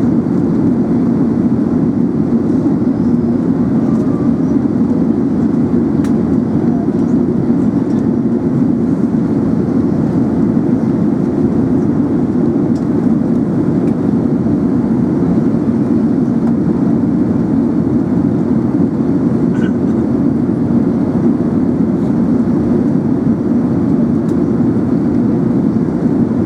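Airbus A380 passenger cabin noise in flight: a steady, even low rush.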